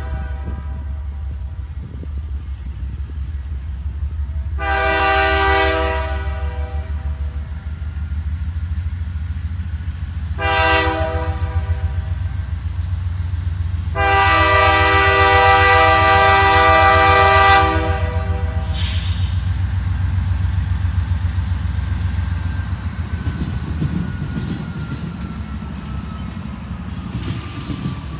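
GE Dash 9-44CW diesel locomotive approaching with its engine rumbling steadily, sounding its air horn in separate blasts: one trailing off at the start, then a long blast, a short one and a longer, louder one, the long-long-short-long grade-crossing signal. A faint whine slides slowly down in pitch in the second half.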